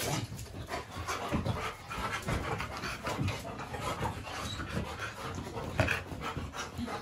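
Excited pet dogs panting hard while greeting someone.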